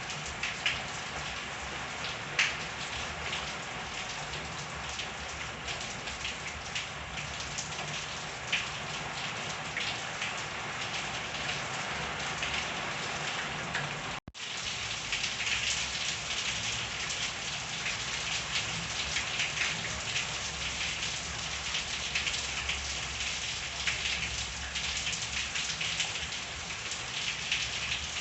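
Steady rain falling, with a dense patter of drops and a few sharper single drop hits near the start. There is a split-second break about halfway through, after which the patter is slightly louder.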